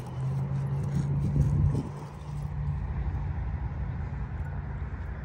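A car engine running, a low steady hum that is loudest for the first two seconds and then fades into a low rumble.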